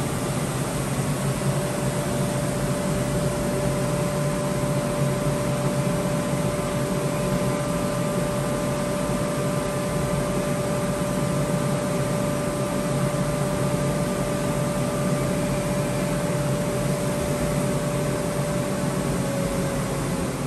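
Studer 31 CNC cylindrical grinder running through a program, its grinding wheel spindle giving a steady whine over a constant hiss and low hum. The whine dips slightly in pitch near the end.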